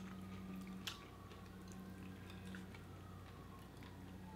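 Quiet eating sounds: faint chewing and small clicks of cooked Dungeness crab shell being picked apart by hand, with one sharper click about a second in. A low steady hum runs underneath.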